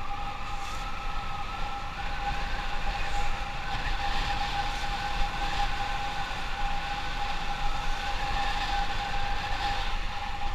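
Motorcycle running along the road, its engine note wandering slowly up and down with speed, under a constant low wind rumble on the microphone and a steady high tone.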